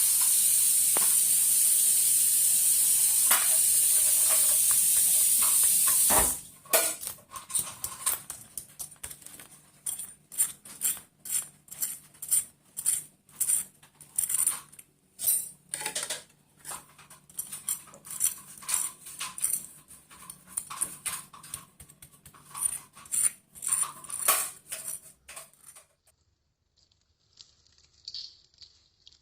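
Chicken pieces deep-frying in hot oil: a loud, steady sizzle for about six seconds that cuts off abruptly with a thump. Then comes a long run of short, irregular crackles and clicks, fading out near the end.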